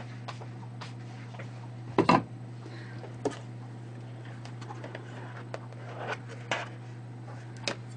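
A few knocks and clatters of a kitchen knife and plastic cutting board being handled on a counter, the loudest about two seconds in, over a steady low hum.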